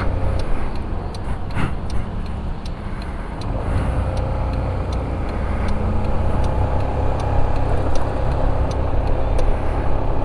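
Steady low wind-and-road rumble of a motor scooter being ridden in traffic, recorded from the rider's position, with the engine's note faintly audible underneath.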